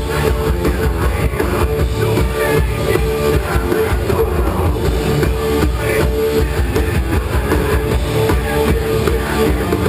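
Heavy rock band playing live and loud, with electric guitars and drums, recorded from the crowd with distorted, muddy sound.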